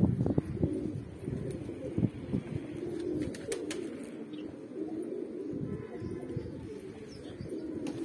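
A flock of domestic pigeons cooing, many low coos overlapping without a break. A few faint clicks come about three and a half seconds in.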